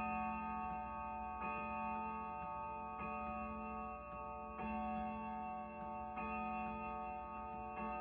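Grandfather clock striking the hour: a ringing bell-like stroke about every second and a half, six in all, each ringing on into the next, with the clock's faint ticking beneath.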